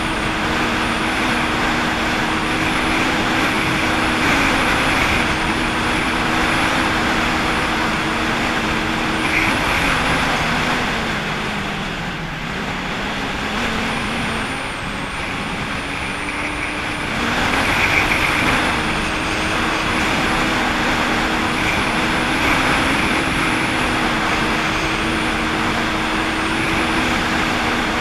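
Jet ski engine running at a steady cruise, with a constant rush of water. The engine eases off briefly around the middle, then picks up again.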